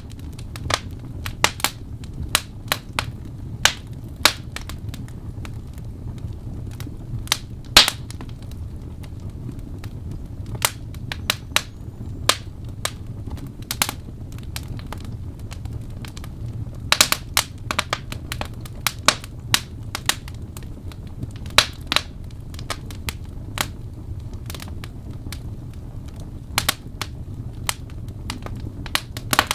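Log fire crackling in a fireplace: irregular sharp pops and snaps, some in quick clusters, over a low steady rumble of the flames.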